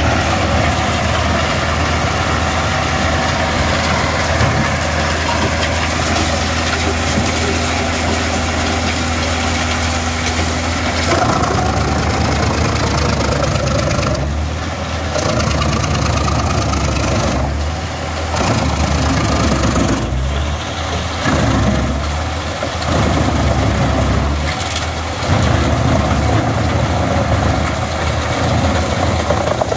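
Heizomat HM 6-300 wood chipper running at full speed, chipping logs and blowing chips out of its discharge spout. The sound is steady for the first part, then dips and swells several times as logs are fed in and chewed through.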